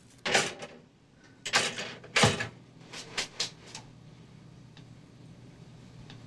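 Pop-up toaster being loaded: a pastry drops into a slot and the metal toaster clicks and clunks, about six sharp knocks over the first four seconds, the heaviest about two seconds in.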